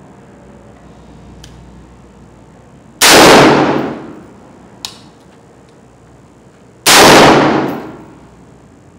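Two single shots from a Colt LE6920 AR-15 rifle in 5.56 mm, about four seconds apart, each very loud and dying away over about a second.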